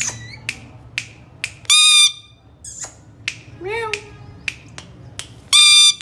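Indian ringneck parrot giving two loud, shrill screeches, one about two seconds in and one near the end, with a short whistled call rising and falling in between. Under the calls runs a regular snapping beat of about two clicks a second.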